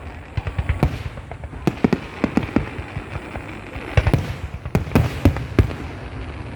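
Fireworks bursting in quick, irregular succession: many sharp bangs with crackling between them, the loudest cluster about four to five and a half seconds in.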